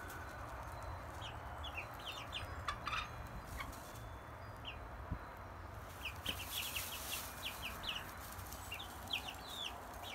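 A small flock of chickens calling with short, high chirps in clusters, thinning out for a moment about halfway through.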